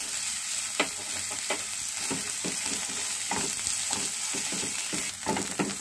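Chopped garlic, ginger and onion sizzling in oil in a nonstick pan, with a spatula scraping and tapping against the pan at irregular intervals as they are stirred.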